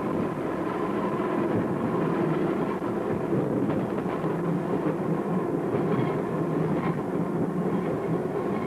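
Sheffield electric tram running along street track: a steady wheel-on-rail rumble with a constant hum underneath.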